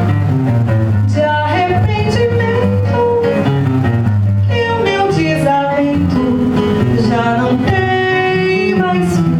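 Live bossa nova music: a nylon-string acoustic guitar (violão) playing an accompaniment under a gliding melody line, which sounds like a woman singing.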